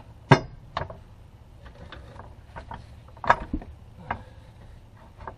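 Steel floor jack being pumped to lift a transmission into place: irregular sharp metallic clicks and knocks, about one or two a second, with the loudest just after the start and about three seconds in.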